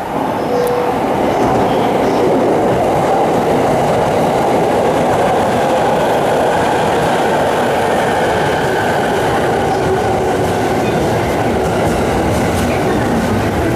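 Electric commuter train running along the platform, a loud steady rumble of wheels on rails that swells just after the start.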